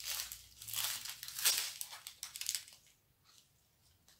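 Small plastic packets of diamond-painting rhinestones crinkling as they are handled and sorted, a run of rustles that stops about two and a half seconds in.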